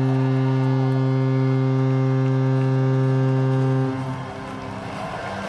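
Arena goal horn sounding one long, steady low note that cuts off about four seconds in, leaving the crowd noise of a cheering arena.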